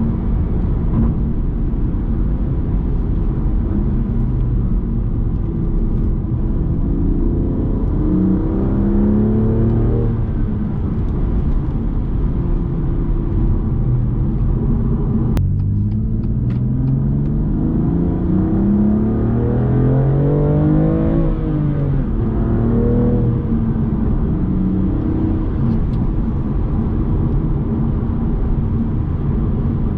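BMW M2 Competition's twin-turbo straight-six, with resonator-deleted exhaust but the petrol particulate filter still fitted, running on the move. Its note climbs twice as the car accelerates: once about a third of the way in, and again, longer, just past halfway. A sharp click comes between the two pulls.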